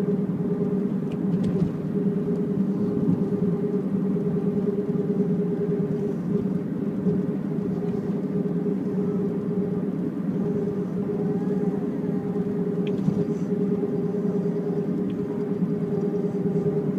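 Mazda CX-7 on the move with a steady droning hum held at one pitch, which the owner suspects is a bad left-rear wheel bearing.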